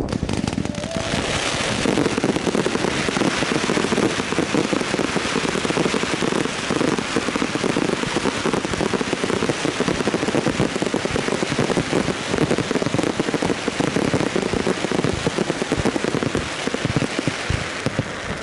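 Fireworks finale: many crackle shells bursting at once, making a dense, continuous rain-like crackling of countless small pops with deeper bangs mixed in. It builds about a second in and thins out near the end.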